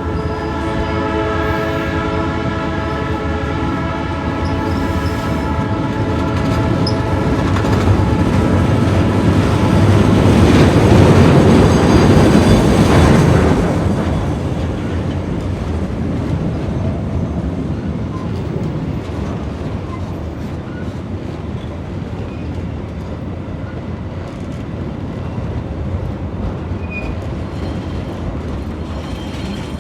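Ferrocarril Central Andino diesel train going by. Its horn holds a long chord for the first several seconds and then fades. The locomotive's engine and wheels swell to their loudest about ten to thirteen seconds in, followed by the steady rumble of the cars rolling along the track.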